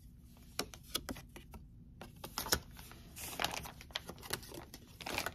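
Tarot cards being handled: an irregular string of light clicks and snaps as cards are pulled from the deck, flipped and laid down, with short rustles of cards sliding against one another.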